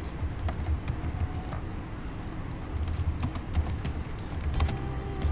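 Computer keyboard typing: irregular key clicks over a steady background hum.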